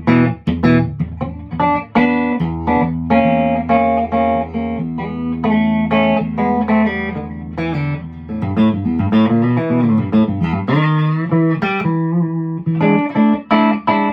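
Tom Anderson Classic electric guitar played on its middle SC stacked single-coil pickup alone, with the VA booster off: a continuous run of picked notes and chords.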